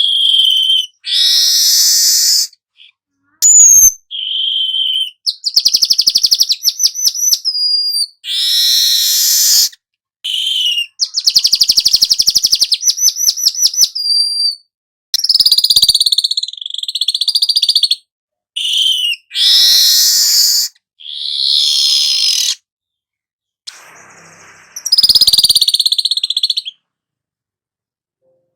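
Weaver bird (manyar kepala emas) song: a string of loud, high, wheezy chattering phrases and fast rattling trills, each a second or two long with short silent breaks between them.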